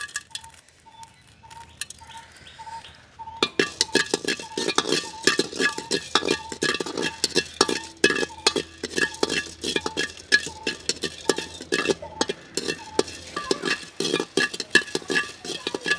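Long wooden spatula stirring and scraping cardamom pods around a large metal wok as they dry-roast: a quick, busy run of clicks and scrapes that starts about three seconds in.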